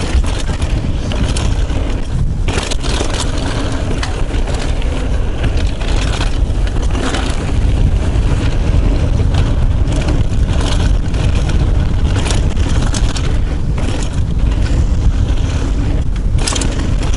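Steady wind noise on the microphone while a Yeti SB75 mountain bike descends a loose dirt trail at speed. Its tyres crunch and scrape over dirt and small rocks, with frequent clatters and knocks from the bike over the bumps.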